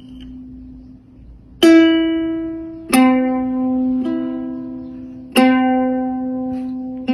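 Background music: slow single notes on a plucked string instrument. Each note rings out and fades, with new notes at about 1.5, 3, 4 and 5.5 seconds in and another at the very end.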